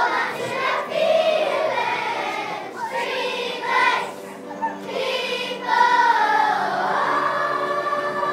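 Children's choir singing a song, with long held notes.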